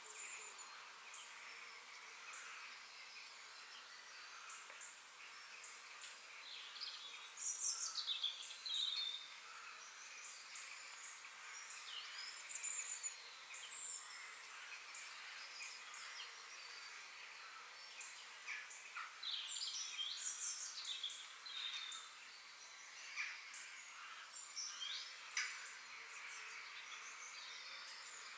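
Woodland birds chirping and whistling, many short calls and quick falling notes from several birds, over a steady background hiss.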